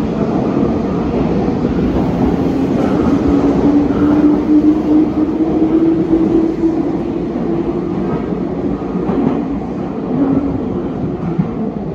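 Meitetsu limited express train pulling out of an underground station platform: wheel rumble and a motor whine that rises in pitch as it gathers speed, then fading as it pulls away, with the sound echoing off the station walls.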